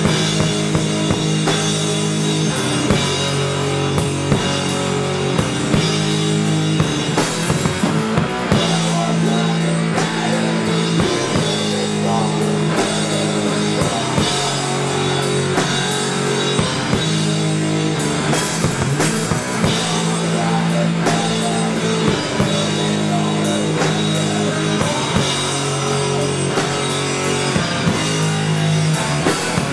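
Live doom/sludge metal: a heavily distorted electric guitar holding slow, low chords over a drum kit, the chords changing every few seconds with drum hits underneath.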